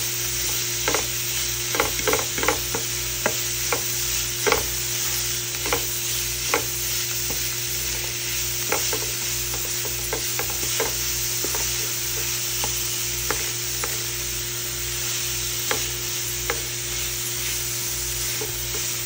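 Wooden spatula stirring chopped broccoli thoran in a nonstick frying pan, with irregular clicks and scrapes of the spatula against the pan over the steady sizzle of the frying mix.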